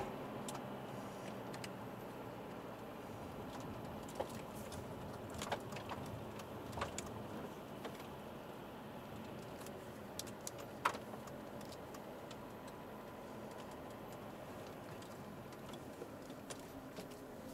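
Steady, quiet drive noise inside the cabin of an Alfa Romeo 159 with the 1.9 JTDM four-cylinder turbodiesel. A few light clicks and taps come through the middle.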